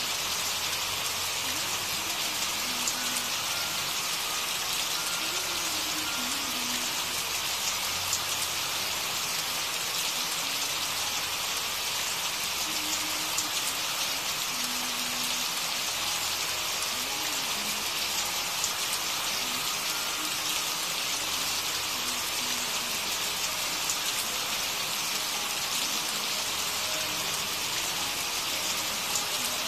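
Steady rain, an even hiss of rain falling on a surface, with faint low pitched sounds buried beneath it.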